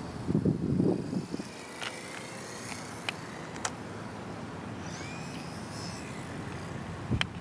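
Steady wind noise on the microphone in high wind, with a brief low rumble near the start and a few sharp clicks.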